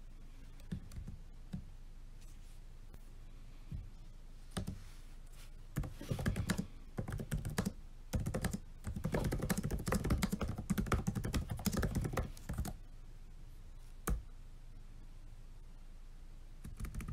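Typing on a laptop keyboard: a few scattered key presses, then fast runs of keystrokes from about six seconds in to about thirteen, and a lone click after.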